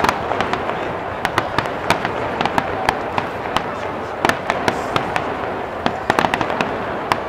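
Aerial fireworks bursting in a rapid barrage: continuous noise of overlapping bursts with many sharp cracks, several a second.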